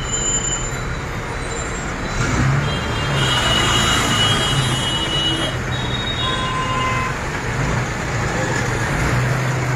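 Road traffic at a jammed junction, with a bus engine running close by and cars moving past. It gets louder about two seconds in, and a brief high-pitched squeal sounds around three to five seconds in.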